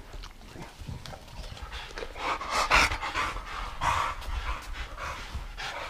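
Bulldogs panting in quick repeated breaths, louder about two to four seconds in.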